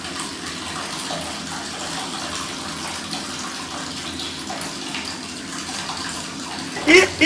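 Water running steadily from a tap into a copper bathtub. A voice starts near the end and is the loudest sound.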